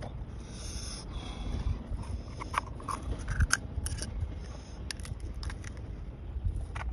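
Oyster shell being pried open and scraped with a small metal utensil: a scattering of sharp clicks and scrapes of shell on shell and metal, over a steady low rumble.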